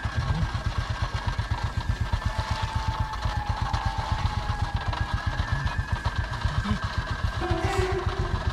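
Small motorcycle engine idling with a fast, even low putter, alongside a steady high thin whine.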